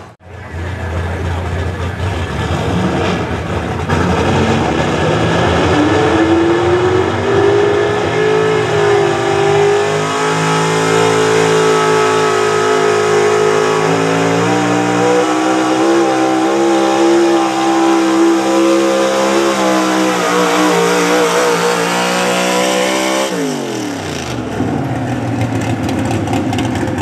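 Chevy pulling truck's big-block V8 at full throttle, hauling a pulling sled down the track. The revs climb over the first few seconds and hold high with a wavering pitch for about fifteen seconds, then fall away steeply near the end as the pull finishes.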